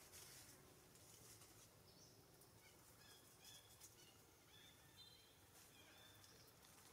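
Near silence: faint outdoor ambience with a few faint, short, high bird chirps in the middle of the stretch.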